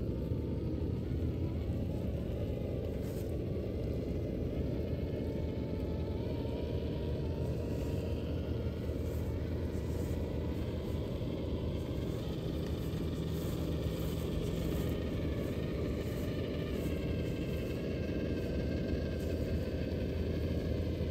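Traxxas TRX-4 RC crawler with a Hobbywing Fusion brushless motor driving slowly: a faint motor whine drifts up and down with the throttle over a steady low rumble.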